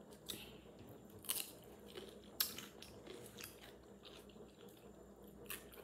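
A person chewing crunchy food close to the microphone, with a few sharp crisp crunches about a second apart.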